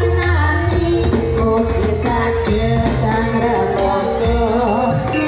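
A woman singing into a microphone over loud amplified music, with a strong bass line and percussion.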